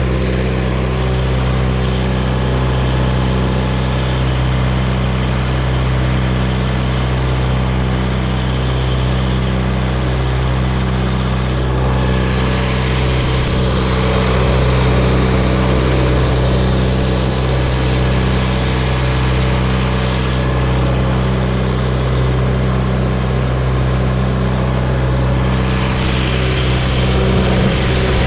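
John Deere stationary irrigation-pump engine running steadily at a constant speed.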